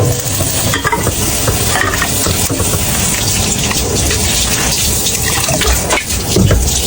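Water running from a kitchen tap into a sink, with scattered light knocks and clatter as something is handled under it.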